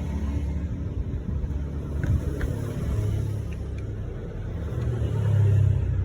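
Low, steady engine-like rumble that swells a little near the end, with a few faint clicks.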